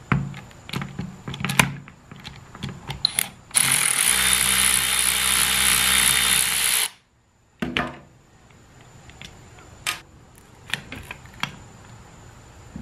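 Power driver with a T25 Torx bit running steadily for about three seconds, then stopping abruptly, as it backs screws out of a transmission valve body. Small metal parts click and clink before and after.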